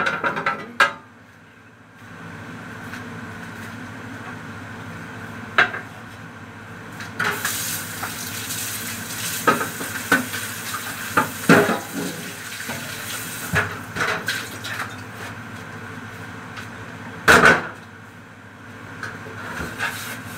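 Kitchen tap running into a stainless steel sink as a baking tray is rinsed, with knocks and clatter of the tray against the sink and dishes. A loud clank comes about 17 seconds in.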